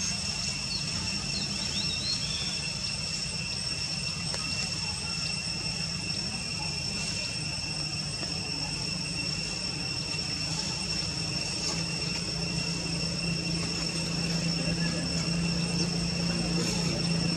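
Steady low hum like distant motor traffic, growing louder over the last few seconds, under two constant thin high-pitched whining tones, with a few faint bird chirps about a second in.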